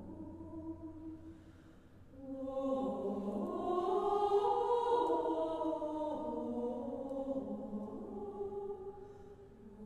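Mixed choir singing unaccompanied sustained chords: soft at first, swelling about two seconds in to a loud peak, then fading away near the end.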